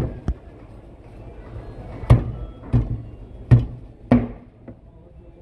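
Heavy cleaver chopping through a kingfish head and into a wooden chopping block: about half a dozen sharp, hard strikes at uneven intervals, the loudest ones about two, three and a half and four seconds in.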